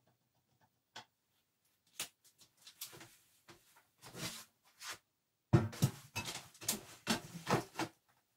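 Watercolor brush and painting tools being handled at the palette: a few light taps, soft rubbing, then a sharper knock about five and a half seconds in followed by a run of scraping and clattering.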